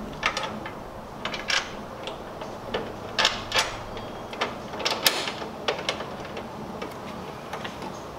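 Irregular metallic clicks and clinks of strut tower bar mounting hardware, a bolt, washer and nut, being handled and threaded on by hand at the strut tower bracket. A few louder clinks come about three and five seconds in.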